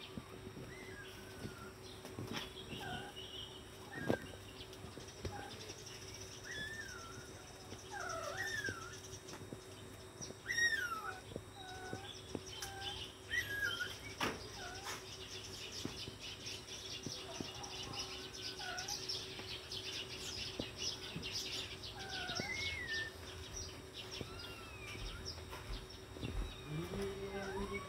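Young kittens mewing in short, high squeaks, again and again, as they nurse on their mother cat. A high, rapid buzzing runs through the middle, and a lower, longer call rises near the end.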